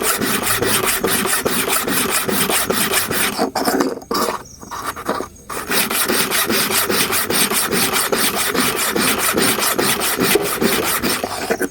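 Hair clipper blade rubbed rapidly back and forth on a diamond sharpening stone: a quick, even rasping of metal on abrasive, several strokes a second. It pauses for a moment about four seconds in, then resumes and stops at the end.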